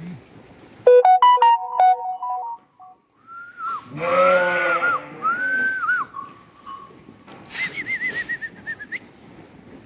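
Whistling: a quick run of clean stepped notes like a short tune about a second in, then rising-and-falling whistled glides, and a warbling whistle near the end. A sheep bleats about four seconds in.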